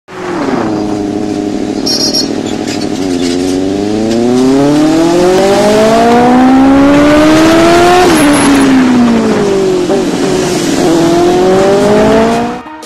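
A vehicle engine revving hard under acceleration. Its pitch climbs steadily for several seconds, drops sharply about eight seconds in, then climbs again near the end.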